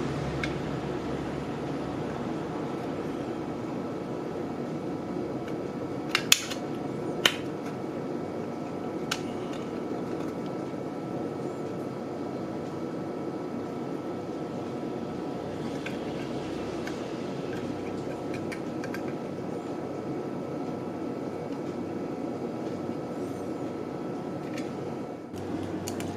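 Steady fan-like hum of room noise, with a few sharp small clicks of metal tools and tin-plate kit parts being handled, about six to nine seconds in and again near the end.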